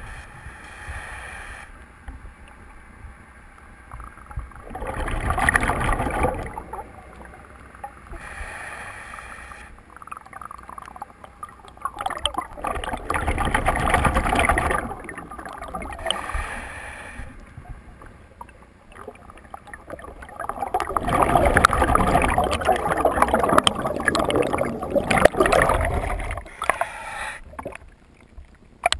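Scuba diver breathing through a regulator underwater: several long bursts of bubbling exhalation, a few seconds each, with a quieter hiss between breaths.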